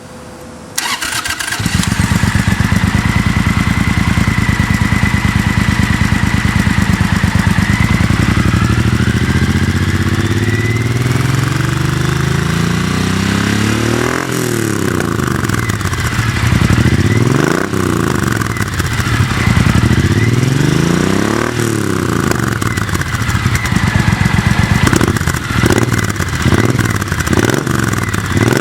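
Triumph Thunderbird 1600 parallel-twin motorcycle engine starting about a second in and settling to idle, with the ECU re-flashed with the TOR map. It is then revved up and down three times, followed by a string of quick throttle blips near the end.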